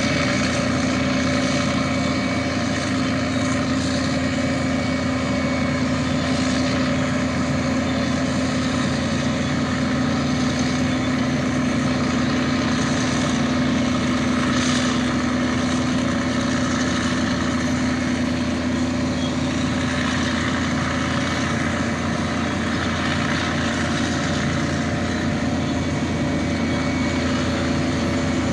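Heavy diesel earthmoving machines, a belt loader and crawler bulldozer, running steadily under load: a constant, even engine drone.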